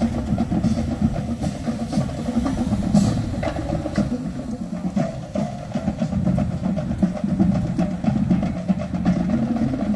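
Marching band playing as it approaches, its drums beating a steady, rapid cadence.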